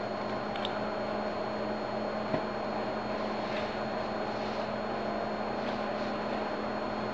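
Steady low hum and hiss of background room noise, with one faint click about two and a half seconds in.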